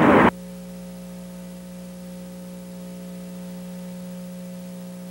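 Outdoor street sound cuts off abruptly just after the start. It leaves a steady electrical hum with a few higher overtones and faint hiss from the recording's blank stretch.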